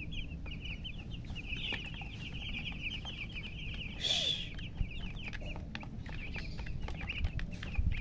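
A flock of young chicks peeping continuously, many short high chirps overlapping, with scattered light ticks and one brief louder sound about four seconds in.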